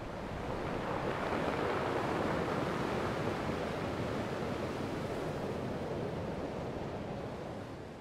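Sea surf washing steadily on a shore, fading in at the start and fading out near the end.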